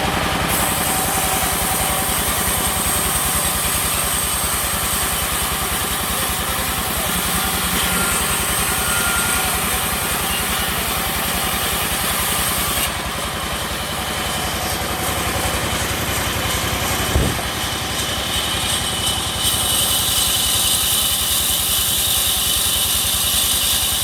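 Engine-driven sawmill machinery running steadily, with one sharp knock about seventeen seconds in.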